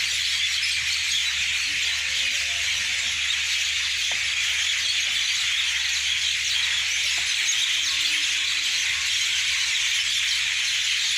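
A large flock of small birds chirping together as they settle to roost, a dense, continuous high-pitched chatter with no single call standing out.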